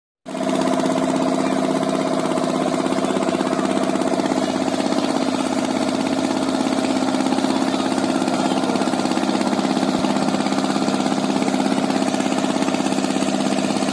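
A boat's engine running steadily with a fast, even pulse, heard close up from on board.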